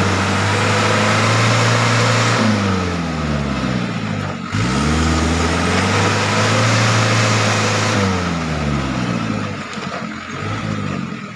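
Truck engine revving hard under load. It holds high revs, lets them fall away, breaks off for a moment near the middle, picks up again to high revs, then falls away again near the end.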